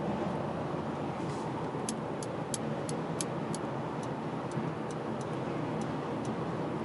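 Steady cabin drone of a Mercedes-AMG CLA 45 S's turbocharged four-cylinder and tyres cruising at motorway speed. About two seconds in comes a run of about a dozen light clicks, a few a second and unevenly spaced, from the centre-console controller as the infotainment menu is scrolled.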